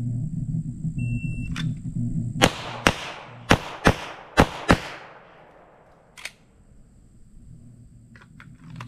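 An electronic shot timer beeps once about a second in. Six pistol shots follow in three quick pairs, fired as double-taps on successive targets. A single sharp click comes a second and a half later.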